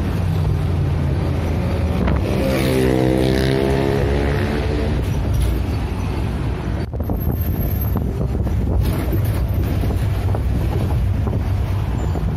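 Vehicle engine running under way, its pitch climbing and falling a couple of seconds in as it pulls away, with wind rushing over the microphone of an open-sided vehicle.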